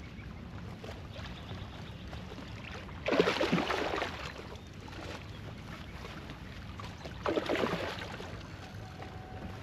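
Water splashing at a kayak twice, about four seconds apart, over a steady low rush of wind and lapping water.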